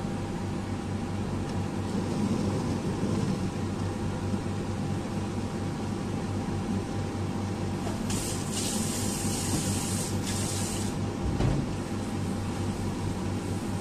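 Steady hum of an induction cooktop heating a steel pot of water. A loud hiss comes in about eight seconds in and lasts around three seconds.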